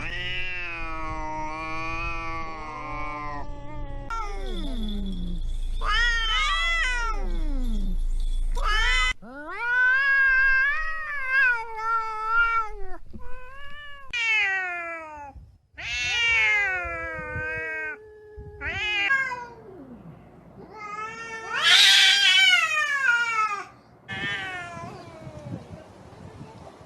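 Domestic cats yowling and caterwauling at each other, the growling-wailing standoff cries of a cat fight. A long, wavering yowl opens, followed by a string of shorter cries that slide up and down in pitch.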